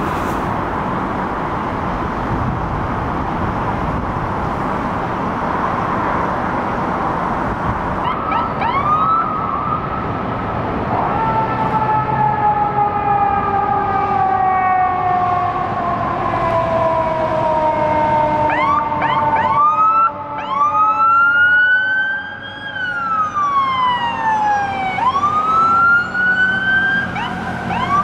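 City traffic noise at first. About eight seconds in an emergency siren starts with short rising whoops, then wails in long tones that slide slowly downward, and in the last part sweeps up and down.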